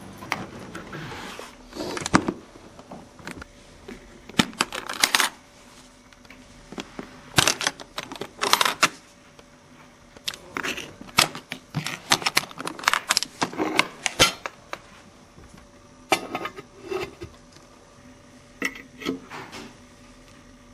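Hard objects being handled, clicking and clinking in short irregular clusters with brief pauses between them.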